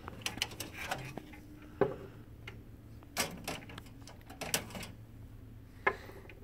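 Irregular plastic clicks and knocks as blue plastic-hubbed pickup and feed rollers are pinched free and pulled off their shafts inside a laser printer's paper-tray cavity. The sharpest knock comes about two seconds in and another near the end.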